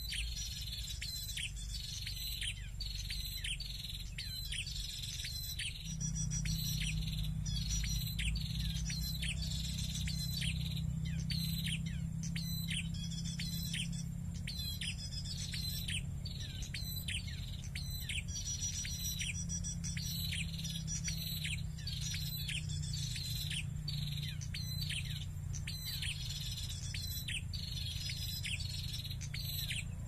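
Prenjak bird calling: one high, falling note repeated about twice a second in an even run. A low rumble sits underneath and grows louder about six seconds in.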